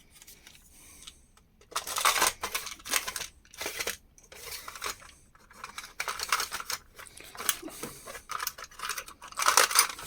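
Small metal hardware (screws, threaded rod, springs) clinking and rattling as it is picked through by hand, in irregular bursts of clicks and scrapes.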